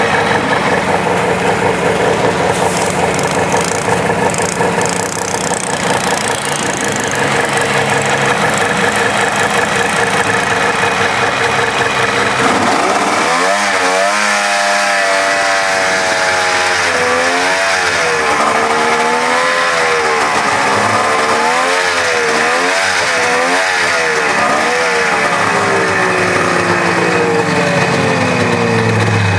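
Snowmobile engine running at a steady idle, then from about halfway in its pitch rises and falls again and again as the throttle is worked, settling back to a steady idle near the end.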